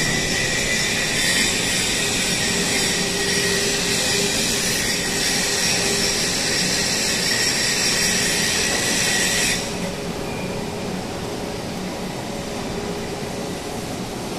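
Machinery running with a steady hiss and a high whine, which cuts off suddenly about ten seconds in and leaves a quieter steady hum.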